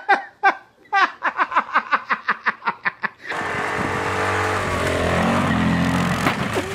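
A woman laughing hard in quick repeated bursts for about three seconds, then an ATV (quad bike) engine running at high revs, its pitch rising and falling, as the wheels spin in snow.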